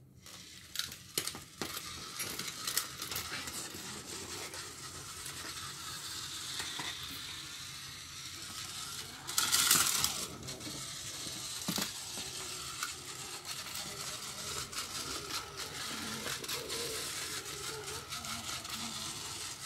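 Battery-powered Tomy toy train running on plastic track: a steady rattling whir of its small motor and plastic wheels, full of small clicks, with a louder clatter lasting about a second near the middle.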